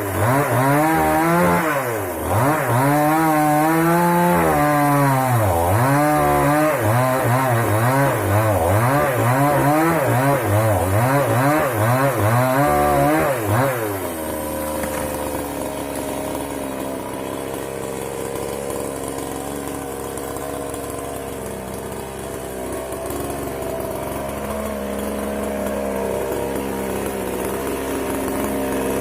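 Moto Yama two-stroke chainsaw cutting dry wood at full throttle, its engine pitch dipping and recovering again and again as the chain bites. About halfway through it drops back to a quieter, steady idle.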